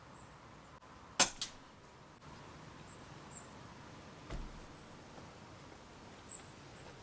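A single suppressed shot from a Rossi 8122 .22 LR rifle firing a low-powder CCI Quiet-22 subsonic round through a SAK sound moderator: one short, sharp crack about a second in, with a fainter crack a quarter second after it. A dull thump about four seconds in.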